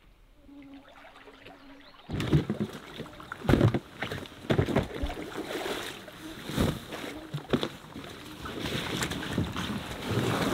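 Royalex canoe being hauled ashore: irregular hollow knocks and scrapes of the hull against the rocky dirt bank, along with gear being handled, starting suddenly about two seconds in after a faint hum.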